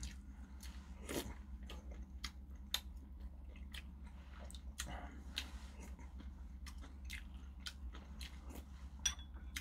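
A person chewing soft food, tofu and rice from a kimchi stew, close to the microphone: faint, irregular small wet smacks and clicks of the mouth, over a low steady hum.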